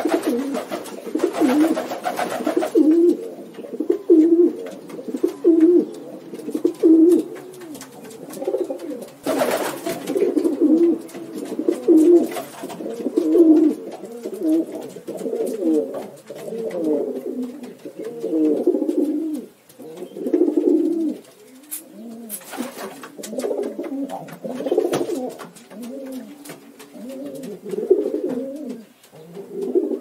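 Pigeons cooing: repeated low coos, about one a second at first, then several birds overlapping.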